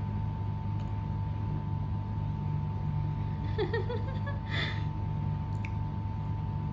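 A steady low background hum with a faint steady tone, such as from a fan or an appliance. About three and a half seconds in, a baby makes a brief babbling sound, followed by a short breathy noise.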